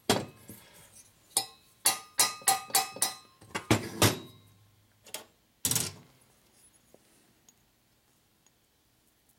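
Sharp metal knocks and clinks, about a dozen in the first six seconds, some ringing briefly: a finned aluminium Harley-Davidson shovelhead cylinder head and its steel valve being handled and turned over on a metal workbench.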